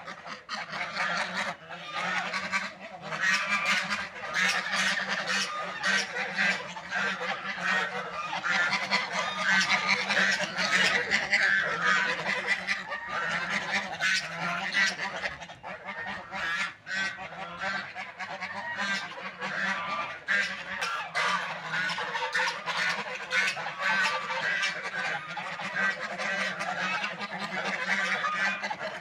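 A flock of ducks calling and quacking continuously, many voices overlapping without a break.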